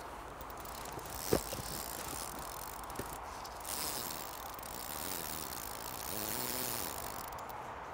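Fly reel's click drag buzzing as a freshly hooked carp runs and pulls line off it. There is a sharp knock about a second in and a smaller one a couple of seconds later.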